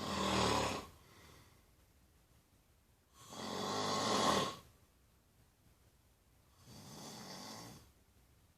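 Snoring during sleep: three noisy breaths about three and a half seconds apart, with quiet between them. The middle breath is the longest and loudest, and the last is fainter.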